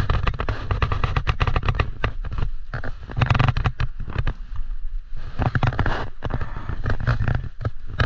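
8-speed SRAM bicycle chain clinking and rattling as it is handled: a rapid, irregular stream of small metallic clicks.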